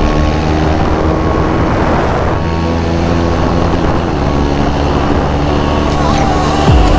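Motorcycle engine running while riding, its note holding fairly steady and changing pitch a couple of times.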